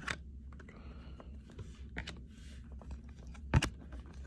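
Trading cards being handled and flipped through, giving a few sharp taps and clicks, the loudest about three and a half seconds in, over a low steady hum.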